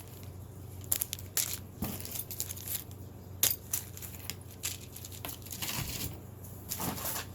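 Plastic packaging crinkling and rustling as small items are handled and pulled from a bag, with irregular sharp crackles and clicks.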